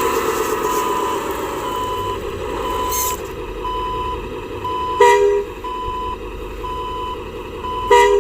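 RC dump truck's electronic sound module sounding a reversing beeper a little faster than once a second, while its simulated engine sound winds down at the start. Two short horn toots about five and eight seconds in are the loudest sounds.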